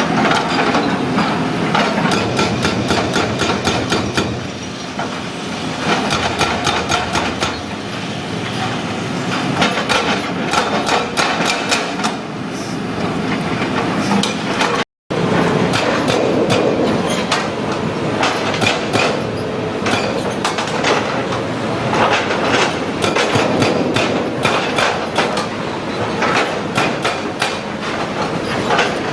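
Excavator-mounted hydraulic breaker hammering at concrete in rapid, continuous blows. The sound drops out for a moment about halfway through.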